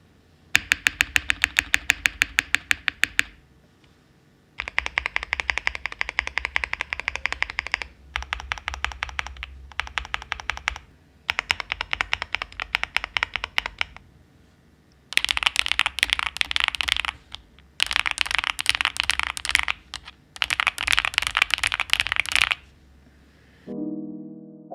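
Typing on a Cub65 custom mechanical keyboard fitted with Cream Yellow Pro switches and GMK Bread keycaps: several bursts of fast keystrokes of a few seconds each, with short pauses between. Piano music comes in near the end.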